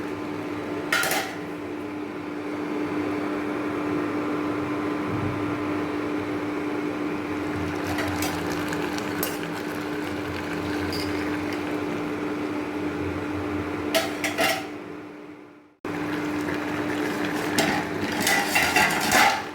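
A metal spoon clattering and scraping against a pan of tomato-onion chutney as it cooks down, a few sharp knocks at a time, over a steady hum and hiss. About three quarters through, the sound fades away and cuts straight back in.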